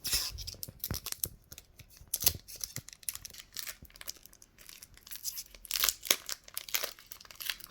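Foil booster-pack wrapper of Pokémon trading cards being torn open and crinkled, in quick irregular rustles and snaps.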